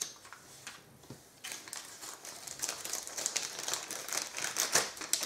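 A thin clear plastic bag being handled, crinkling and rustling in the hands, starting about a second and a half in.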